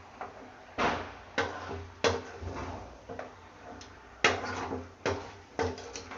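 A metal ladle knocking and scraping against a cooking pot while chicken and spice masala are stirred: about six sharp, irregular clanks with short ringing between quieter scraping.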